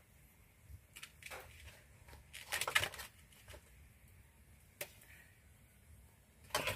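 A metal ladle scooping and scraping cooked rice out of a metal pot and onto a plate: a few light clinks and scrapes, with a short cluster of them a few seconds in and another near the end.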